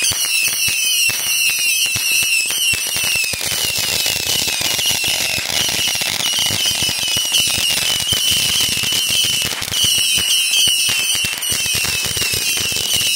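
Consumer fireworks going off: a dense, continuous crackle of small pops, with a high, shrill whistle that warbles in short repeated glides over it, from ground fountains and small rockets.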